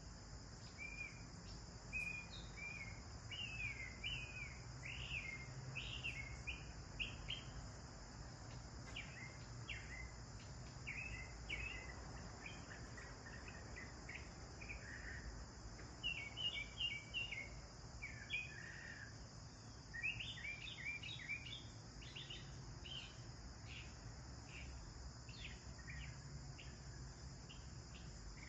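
House sparrows chirping, short repeated chirps coming in bunches, over a steady high buzz of insects.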